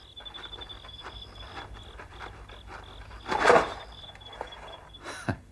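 Crickets chirping, a high thin trill repeating in short pulses, with one brief louder sound about three and a half seconds in.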